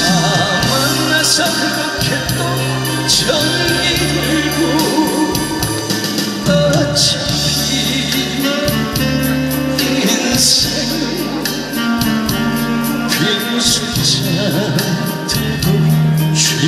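A man singing a Korean trot song live into a handheld microphone over a pre-recorded backing track with bass and drums, amplified through a stage PA.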